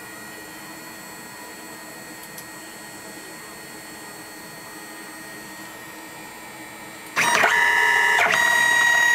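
A hobby CNC machine's stepper motors hum faintly while it stands still. About seven seconds in they break into a loud whine of several steady tones as the axis drives the rotary-tool bit down, in two moves with a short change of pitch between them.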